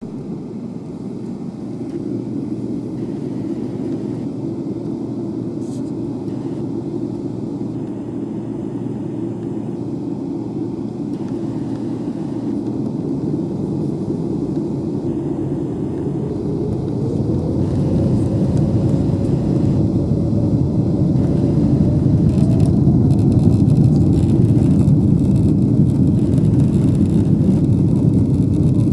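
Boeing 777-300ER's GE90-115B turbofans heard from inside the cabin: a steady rumble, then a rising whine about sixteen seconds in as the engines spool up to takeoff thrust. The rumble grows steadily louder as the takeoff roll begins.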